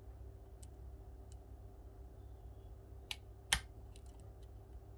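Small sharp metallic clicks of a lock pick probing the pin stacks of an Assa Flexcore euro cylinder under tension, checking each pin for one that is set wrong. There are a handful of scattered ticks, the loudest about three and a half seconds in.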